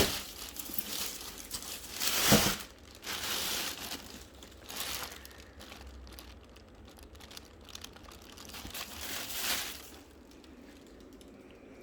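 Packaging crinkling as a new handbag is handled and unwrapped, in several bursts with quieter handling between; the loudest burst comes about two seconds in.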